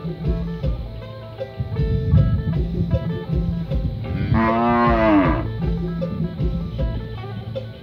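A cow mooing once, a single call about a second long that rises and falls in pitch, over background guitar music.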